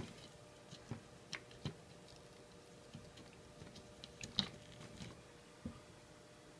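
Faint scattered clicks and taps of a small USB dongle being handled and pushed into a Beaglebone Black's USB host port, the loudest click about four and a half seconds in.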